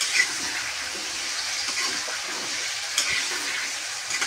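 Diced potatoes frying in oil in a metal kadhai, a steady sizzle, with a metal spoon clicking and scraping against the pan near the start and again about three seconds in.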